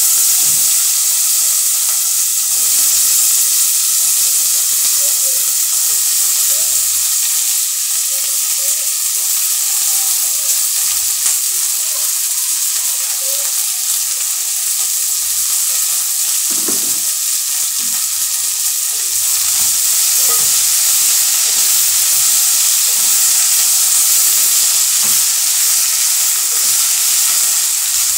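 Chopped vegetables (red cabbage, carrots, green peppers) frying in oil in an aluminium pot, with a steady, loud sizzle and occasional scrapes of a spoon stirring against the pot.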